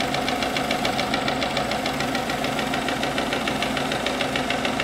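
Homemade two-cylinder double-acting model steam engine running steadily under load, driving a small generator, with a fast, even mechanical beat over a steady hum.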